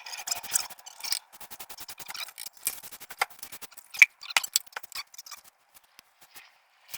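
Steel trowel scraping and clicking against tile and mortar: a run of irregular short clicks and scrapes, thinning out near the end.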